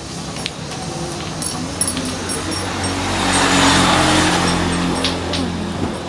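A road vehicle passing close by, its engine hum and tyre noise swelling to a peak about halfway through and then fading, with a few light clicks.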